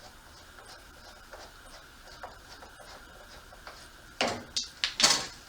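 Handling noise as a boat's live well pickup screen is taken off: a faint steady hiss, then about four seconds in a few short, noisy scrapes, the last and loudest about a second later.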